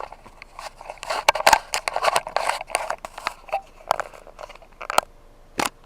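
Irregular sharp clicks, taps and short scraping rustles, some in quick runs, the loudest click about five and a half seconds in.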